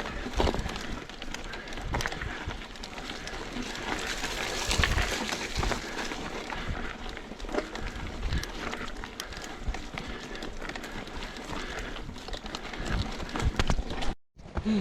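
Mountain bike riding over a rough, wet trail: steady tyre noise with frequent rattles and knocks from the bike, and wind rumble on the camera microphone. The sound breaks off briefly near the end.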